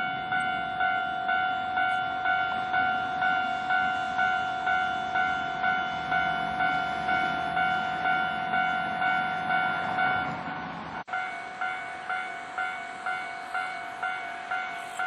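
Japanese level-crossing warning bell ringing its repeated kan-kan, about two strikes a second, while a JR West electric commuter train passes over the crossing. The train's rumble fades out about ten seconds in. After a brief sudden dropout near eleven seconds, the bell keeps ringing alone.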